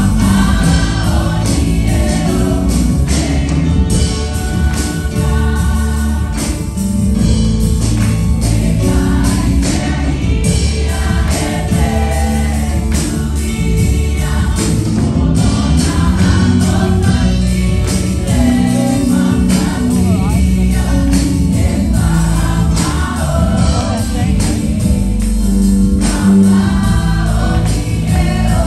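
A choir of women and girls singing gospel music with instrumental accompaniment, a strong bass and a steady drum beat under the voices.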